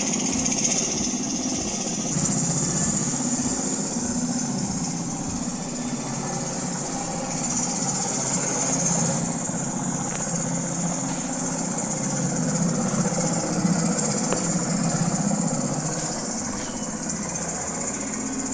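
Recorded helicopter turbine and rotor sound played through a scale model helicopter's built-in speaker: a steady high hiss over a low throb.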